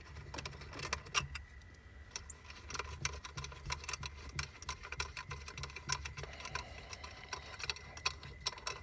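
Irregular clicking and ticking of screws being driven and handled during blower motor reassembly, over a low uneven rumble.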